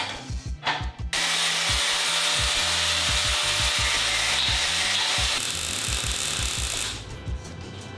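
A power tool, most likely an angle grinder, cutting steel: a steady harsh hiss with a faint motor whine. It starts about a second in and stops shortly before the end, under background music with a beat.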